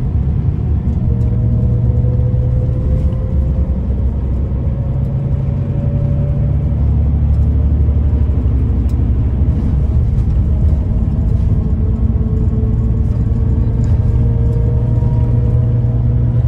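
Scania Irizar Century coach on a Scania K340EB4 chassis heard from inside the passenger cabin while under way: a steady low diesel engine drone with tyre and road noise, the engine note rising slowly twice.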